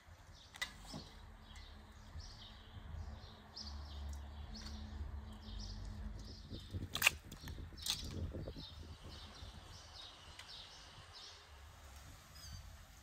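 Small birds chirping over and over in the background. A few sharp clicks or knocks stand out, the loudest about seven and eight seconds in.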